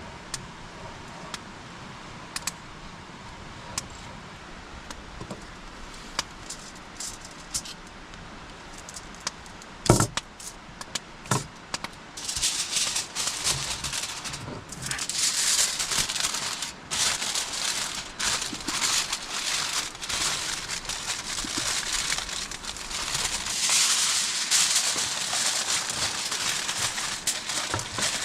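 Campfire crackling under roasting meat, with scattered sharp pops and a loud knock about ten seconds in; from about twelve seconds in a louder, denser crackling hiss takes over.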